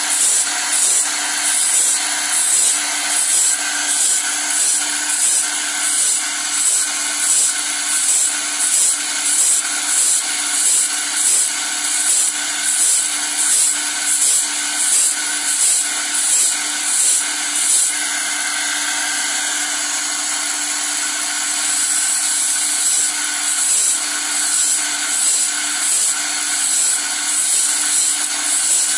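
Motor-driven grinding wheel sharpening a sawmill band saw blade, grinding tooth after tooth in a quick, even rhythm over the steady hum of its belt-driven electric motor. The rhythm breaks off a little past halfway, leaving only the running wheel and motor for a few seconds, then starts again.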